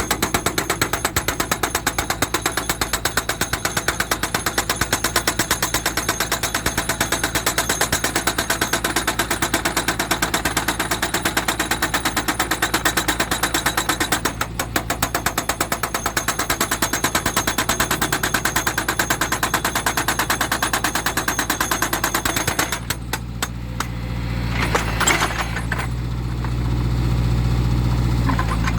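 Hydraulic breaker hammer on a JCB 3D backhoe loader pounding rock in a rapid, steady stream of blows, with a brief break about halfway. Near the end the hammering stops and the backhoe's diesel engine runs on alone.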